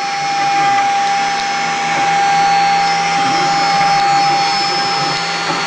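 Home-made gantry CNC router's 2.2 kW high-speed spindle running at a steady high whine while its small bit carves a 3D relief into wood, with an even rushing cutting noise underneath.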